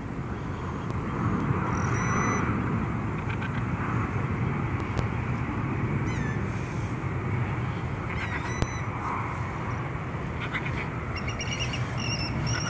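Birds calling around a seagull fight: short, high-pitched calls now and then, with a quick run of repeated calls near the end, over a steady low background rumble.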